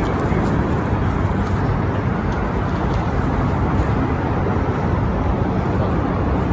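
Steady, low rumble of traffic noise under an elevated highway overpass.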